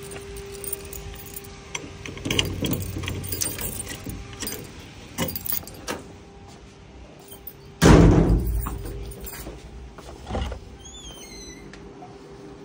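Keys jangling and small clicks, then about eight seconds in a loud bang that dies away over a second or so, a door being shut, with a smaller knock soon after.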